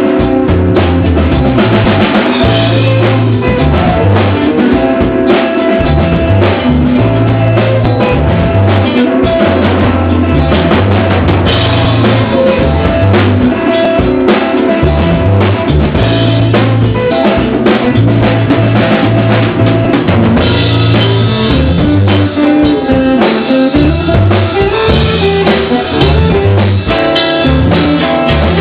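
Loud music with a full drum kit (bass drum, snare, rimshots) over a steady bass line and other instruments, playing continuously.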